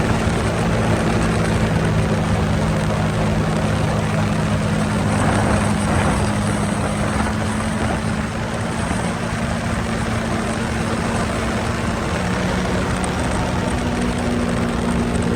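Sea-Doo jet ski engine running steadily under way, a constant low drone under a broad rush of noise.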